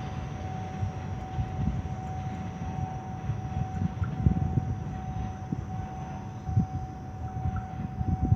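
Low rumble with irregular gusting thumps, typical of wind buffeting the microphone, under a faint steady high tone.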